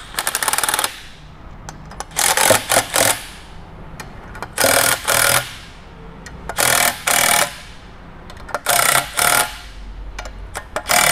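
DeWalt cordless impact wrench hammering in short bursts about every two seconds. It is driving two 10 mm jacking bolts in turn to press the end plate and its bearing off a rotary vane pump evenly.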